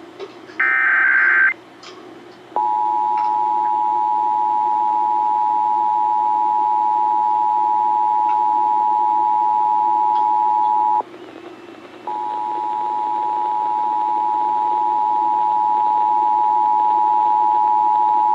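Emergency Alert System broadcast tones. A one-second burst of the SAME digital data code is followed about a second later by the steady two-tone EAS attention signal, sounded together at 853 and 960 Hz. The attention signal breaks off for about a second near the middle, then resumes and grows slightly louder; it announces a relayed Required Monthly Test alert.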